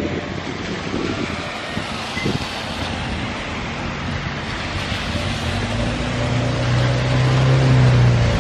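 City street traffic on a wet, slushy road: tyres hissing and engines running. There is some wind buffeting on the microphone in the first couple of seconds, and a low engine hum swells over the last few seconds as a vehicle comes close.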